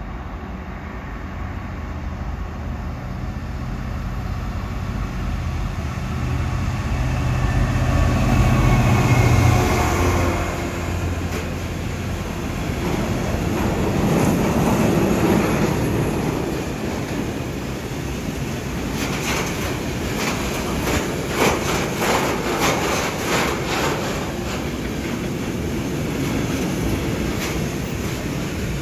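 A freight train of tank wagons passing on a nearby track. A low steady hum builds over the first ten seconds as the train approaches, then the wagons roll past with a rumble and a run of rapid wheel clacks a little past the middle.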